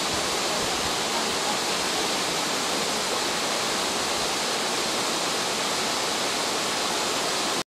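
Steady rushing of a small stream of water running down a rocky gully in a landslide scar; the sound cuts off suddenly near the end.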